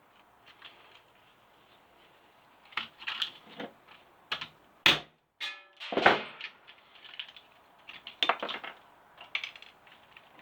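Brick hammer knocking apart an electric shower unit: a run of irregular sharp knocks and clatters of plastic and brass parts, starting about three seconds in, the loudest two blows near the middle.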